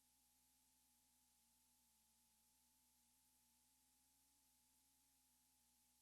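Near silence: a faint steady hum and hiss with no other sound.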